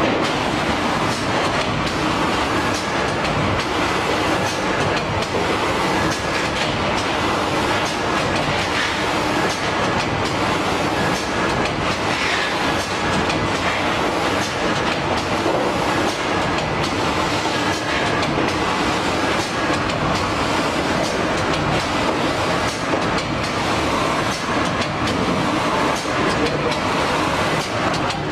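Automatic film sealing and heat-shrink tunnel machine running: a steady mechanical whir from its conveyor and blowers, with a light regular clatter about once a second.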